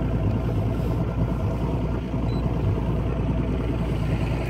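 A boat's motor running steadily at low speed, a continuous even drone with no change in pitch.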